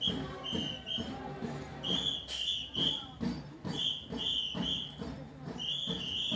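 Music with a high whistle-like figure of three short notes that repeats about every two seconds, over a rhythmic beat.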